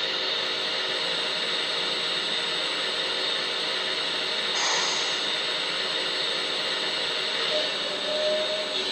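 1/14 scale LESU Komatsu PC360 RC hydraulic excavator running: a steady whirring hiss from its pump and motors, briefly louder and brighter about halfway through.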